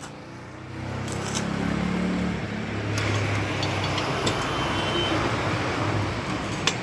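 Road traffic: a motor vehicle's engine running with wide road noise that swells after about three seconds, and a few sharp clicks.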